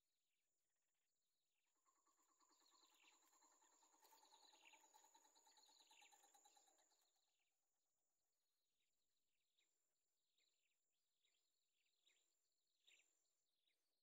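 Very faint, rapid pulsing chatter of bittern chicks calling in the nest, starting about two seconds in and lasting about five seconds. It is followed by scattered faint ticks and chirps, with a thin steady high whine throughout.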